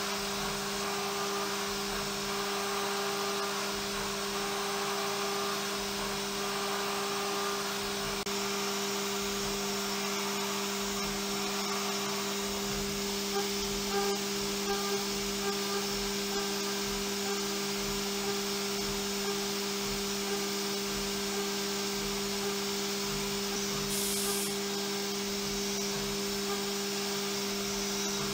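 Haas CNC mill's spindle whining steadily on one pitch over an even hiss as a PVD-coated end mill takes a light finishing pass across the bevel of a hardened 20CV steel knife blade. A brief sharper hiss comes about 24 seconds in.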